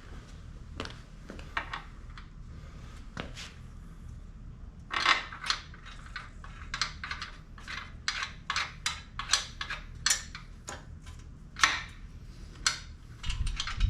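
A run of sharp, irregular clicks and light clinks, a few a second, starting about five seconds in over a low steady hum, typical of bolts and hand tools being handled while the saw is bolted onto its stand.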